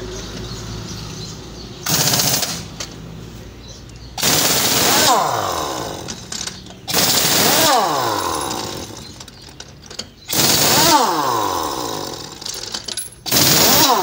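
Pneumatic impact wrench hammering on a truck's wheel nuts in five short bursts, each dying away in a falling whine as the wrench spins down. The nuts are being loosened to take off the punctured wheel.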